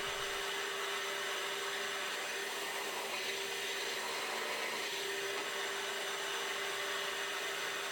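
Pillar drill (drill press) motor running steadily, an even hum with one held tone over a hiss.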